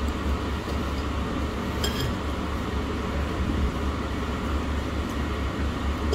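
Steady low rumble of restaurant background noise, with a light clink of tableware about two seconds in.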